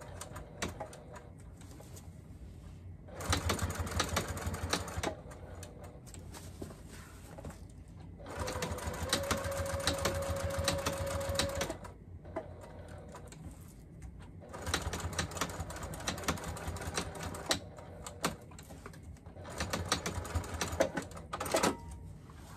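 Sewing machine stitching in four short runs with pauses between, the needle going up and down rapidly. It is sewing a strip of Velcro down through fabric, a few stitches at a time with backstitching, to make the Velcro extra secure against being pulled open.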